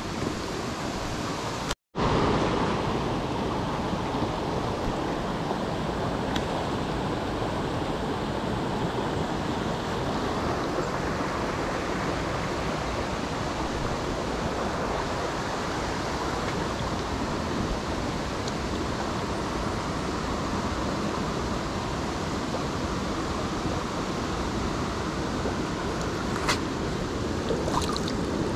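Steady rush of a mountain stream's flowing water, broken by a moment of silence about two seconds in, with a few light ticks near the end.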